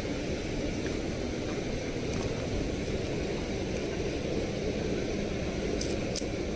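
Steady low rumble of wind buffeting the microphone outdoors, with a few faint sharp ticks near the end.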